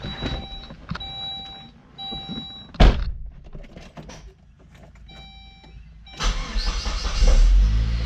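An electronic warning chime repeats in the car, and a heavy thunk comes about three seconds in. Near the end the 2002 Saab 9-3 convertible's four-cylinder engine is cranked and catches, settling into a steady idle. It starts in park on the newly fitted neutral safety switch, a good sign.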